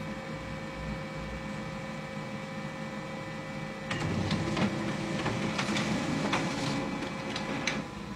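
Office printer/scanner warming up with a steady hum. About four seconds in, its copying mechanism starts running with a rapid series of clicks and clatter, and it stops shortly before eight seconds.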